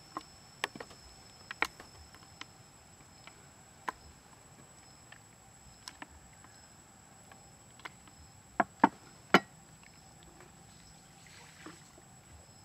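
Light knocks and taps of a wooden tray and raw quails being set down and shifted on a wooden board: about a dozen scattered sharp taps, with the three loudest close together about three-quarters of the way through.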